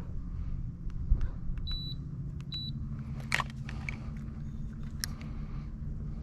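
Electric trolling motor of an Old Town Autopilot 120 motorized kayak humming steadily. Two short high beeps come about two seconds in, and the hum steps up in pitch right after, a change of motor speed. Scattered clicks and two sharp rattles follow later.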